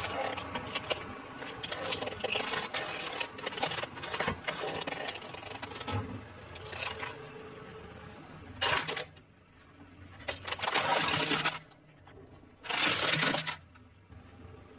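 Plastic toys and bottles cracking and crunching under a rolling car tyre: a long stretch of crackling, then three shorter bursts of crunching in the second half.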